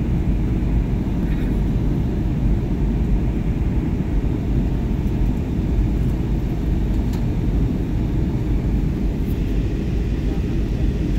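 Steady cabin noise of a jet airliner in flight, heard from inside at a window seat: a constant low drone of engines and rushing air.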